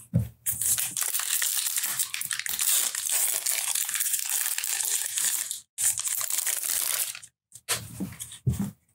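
Plastic-foil wrapper of a baseball card pack crinkling and tearing as the pack is ripped open by hand, for about five seconds, then again briefly after a short pause.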